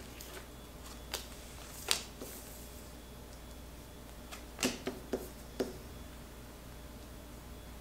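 Oracle cards being dealt and laid down on a table: a few soft card taps and slaps, single ones early and a quick cluster of several about two-thirds of the way through.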